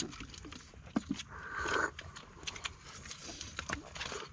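Scattered small clicks, taps and scrapes of sea urchin shells and utensils being handled while people eat the roe by hand, with a short hiss about a second and a half in.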